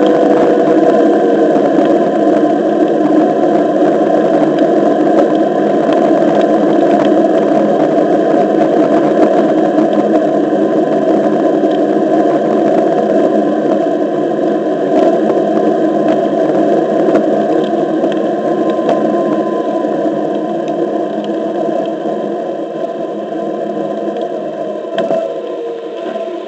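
Onewheel XR riding: the hub motor's whine and the tyre rolling over pavement make a steady road noise, with a faint whine that shifts in pitch with speed and an occasional tick from cracks in the surface. It gets somewhat quieter over the last several seconds.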